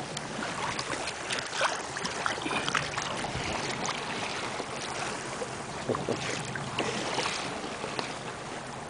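Sea water lapping and splashing against the side of an inflatable boat, with irregular small splashes and wind on the microphone.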